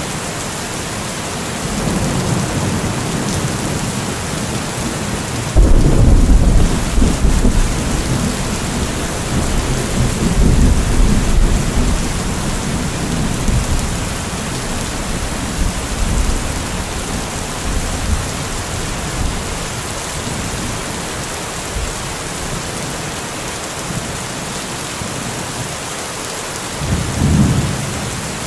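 Steady heavy rain hissing, with a sudden loud clap of thunder about five seconds in that rolls and rumbles for several seconds, and a shorter rumble of thunder near the end.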